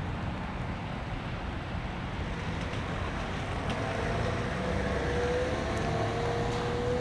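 Outdoor wind ambience: a steady low rumble of wind on the microphone, with a faint humming tone, like a distant engine, setting in about four seconds in and rising slightly.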